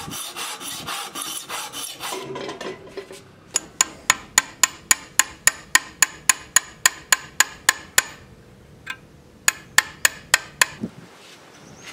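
A file rasping over the steel talwar blade for about two seconds, then a chisel being tapped to engrave a floral pattern into the blade: quick sharp metallic taps, about five a second for several seconds, a pause, and a shorter run of taps near the end.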